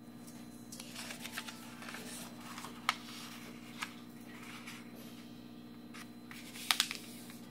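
A sheet of origami paper handled and folded corner to corner, with soft rustling and a few sharp crackles as the fold is pressed flat, the loudest cluster near the end. A steady low hum runs underneath.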